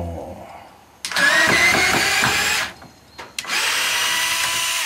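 Makita pen-type cordless drill driver running in two bursts of about a second and a half each, its bit working into a wooden board; the motor pitch rises briefly as the first burst starts.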